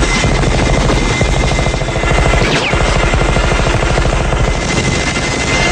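Sustained, very rapid automatic gunfire, a gatling-like stream of shots too fast to count apart, with no break.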